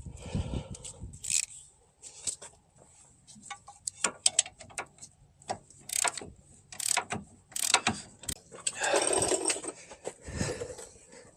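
Ratchet wrench clicking in short runs as a brake caliper bolt is run in and tightened, with a longer rasping stroke about nine seconds in.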